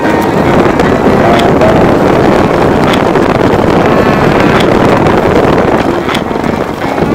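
Loud wind buffeting a camera's built-in microphone at downhill speed, over a steady low rumble of rolling on the road.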